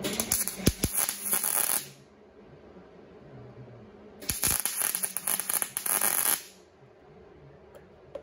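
MIG welder running two short welds on sheet steel: about two seconds of crackling arc, a pause of a couple of seconds, then another two-second burst of crackling.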